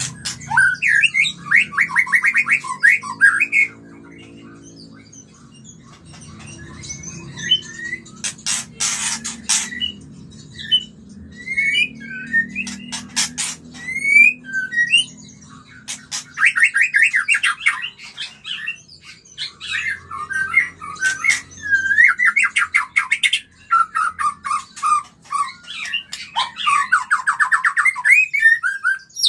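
White-rumped shama in breeding condition calling: bursts of rapid chattering trills several times over, mixed with short whistled notes and a few sharp clicks.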